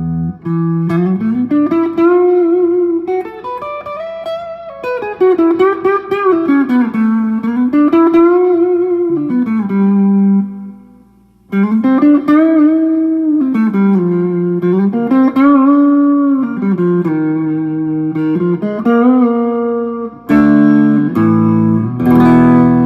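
PRS Singlecut electric guitar on its Fralin P90 neck pickup, played clean through a Marshall JCM 2000 with delay and a little reverb. It plays a melodic single-note line with notes bent up and back down, pauses briefly about halfway through, and ends on chords.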